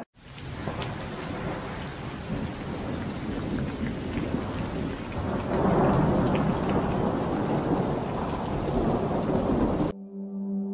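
Rain and thunder: a steady downpour hiss with a rumble that swells about halfway through, cutting off suddenly near the end.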